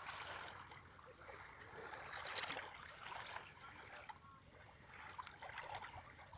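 Small waves washing onto a stony beach, the wash swelling and falling back twice.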